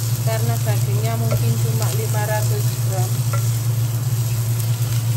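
Aromatics and rawon spice paste sizzling in oil in a nonstick pot, stirred and pushed around with a wooden spoon while they sauté until fragrant. A steady low hum runs underneath.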